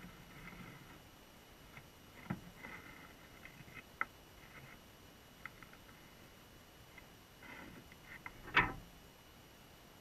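Muffled underwater sound heard through a GoPro's sealed housing: a faint steady hiss with a thin high tone, scattered short clicks and knocks, and one louder knock about eight and a half seconds in.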